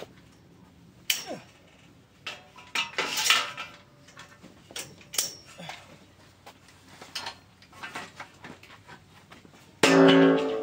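Steel greenhouse pipes and a metal channel knocking, clattering and scraping as they are handled. Near the end the metal channel hits the ground and pipes with a loud clang that rings on in several tones.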